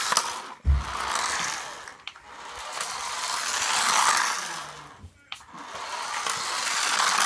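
Toy remote-control car's small electric motor whirring as it drives over a floor mat, the sound swelling and fading as the car passes close and moves away, loudest about four seconds in. A low thump just under a second in.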